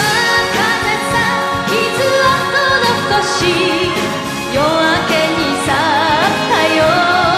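Enka music: a full band passage with a lead melody line sung or played with a wide vibrato.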